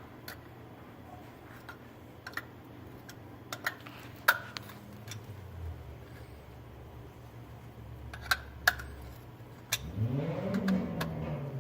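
Scattered small metal clicks and taps of hand tools working the switch nut on a Clarke edger's switch, over a low steady hum. About ten seconds in, a louder humming sound rises and then falls in pitch over about two seconds.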